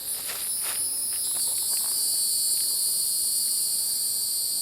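Steady, high-pitched chorus of insects, with a few faint clicks in the first two seconds.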